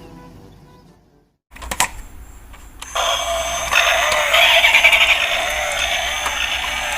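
Tinny electronic sound effects and melody from a battery-powered toy vehicle's small speaker, starting about three seconds in after a brief silence and a few clicks.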